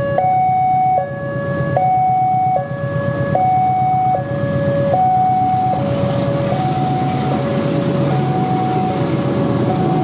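Railway level-crossing warning alarm sounding a steady high-low two-tone signal, each note a little under a second, the warning that a train is coming through. It grows fainter about halfway through, over a low rumble of traffic.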